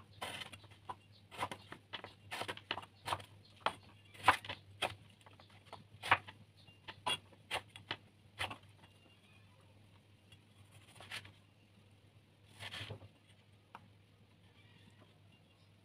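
Kitchen knife cutting tomatoes on a wooden chopping board: a quick, irregular run of sharp taps of the blade on the wood, thinning out after about eight seconds to a few scattered cuts.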